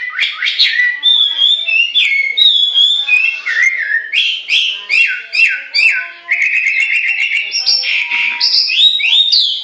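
Chinese hwamei (melodious laughingthrush) singing a loud, varied whistled song. It runs through a string of repeated downward-slurred whistles, then a fast trill a little past the middle, and ends with rising whistled sweeps.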